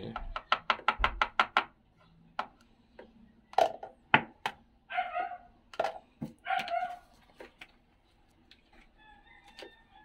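Quick run of about a dozen light plastic taps in the first two seconds, then scattered clicks, from a measuring cup and the open detergent drawer of a front-loading washing machine being handled. Two short calls stand out a few seconds in.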